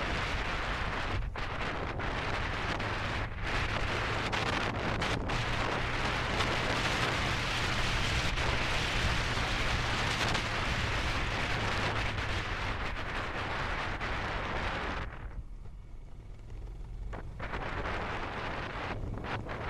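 Wind rushing over the camera microphone on a moving Royal Enfield Himalayan, with the single-cylinder engine's steady low hum underneath. The wind noise briefly drops away about fifteen seconds in, then returns.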